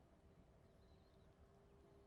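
Near silence: a faint low rumble with a faint steady hum.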